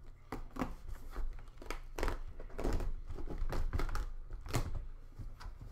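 A shipping package being cut and torn open with a plastic comb: irregular crinkling, scraping and tearing with many sharp little rips and clicks.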